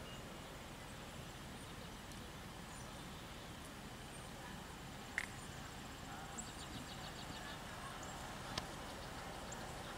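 A pony trotting on arena sand, its hoofbeats faint under steady outdoor background noise. Two sharp clicks come about five and eight and a half seconds in.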